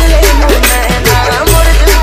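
DJ remix of a Chhattisgarhi song: loud dance music with a heavy bass beat, steady percussion hits and a melody line over it.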